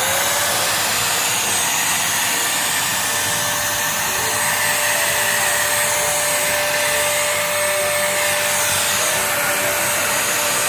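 Bolde Super Hoover vacuum cleaner running on the floor. Its motor whine rises to speed in the first second, then holds steady over a loud rush of suction air.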